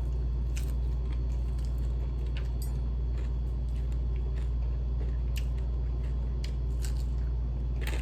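Close-up chewing of crispy fried chicken, with short crunches every second or so over a steady low hum.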